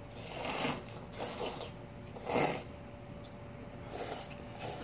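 Noodles being slurped: about five short, noisy slurps, the loudest about two and a half seconds in.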